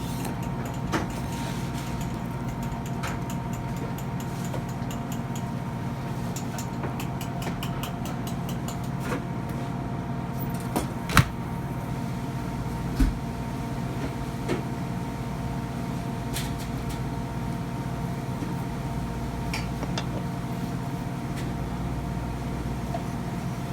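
A steady machine hum holding several fixed tones over a low rumble, broken by a few sharp knocks, the loudest about eleven seconds in.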